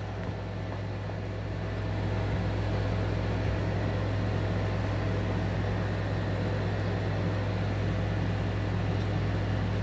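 Steady low mechanical hum of a running machine, getting a little louder about two seconds in.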